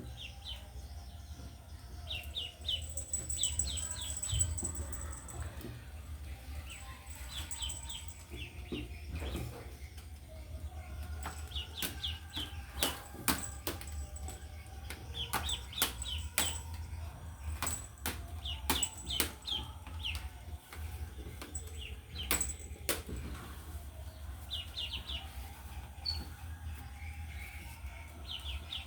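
Ducklings peeping in quick runs of three to five high, falling peeps, over and over, with scattered sharp clicks and taps through the middle and a steady low hum underneath.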